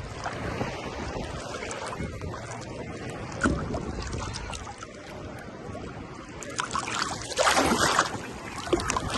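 Sea waves washing onto the shore, with wind buffeting the microphone; a louder wave surges in about seven seconds in.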